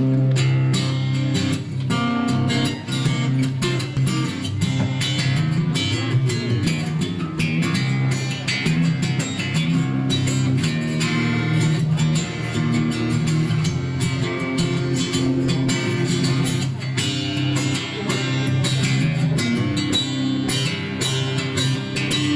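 Solo acoustic guitar playing the instrumental opening of a song, a steady, busy run of plucked notes and chords with no singing.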